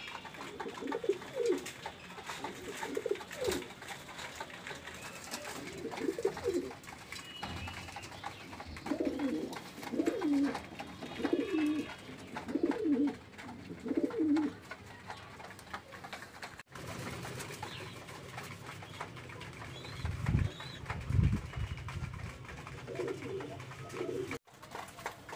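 Fancy pigeons cooing: low coos repeated in short runs. There are a couple of dull low thumps in the later part.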